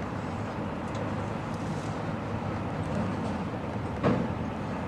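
Heavy machinery engine running steadily with a low hum, and one sharp knock about four seconds in.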